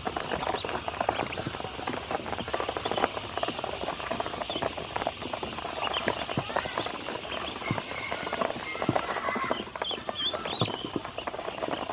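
A brood of ducklings pecking at feed in a plastic basin: a rapid, constant clatter of bills tapping the plastic, with short high peeps scattered through it, more of them in the second half.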